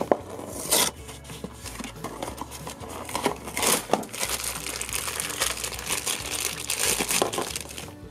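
Hands opening a cardboard Funko Pop figure box and pulling out its plastic packaging: irregular crinkling and rustling with small clicks, and a few louder rustles.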